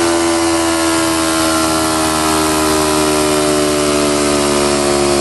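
Kawasaki Ninja 300's parallel-twin engine running loud and steady through a Mivv Suono slip-on exhaust, its pitch easing slowly down.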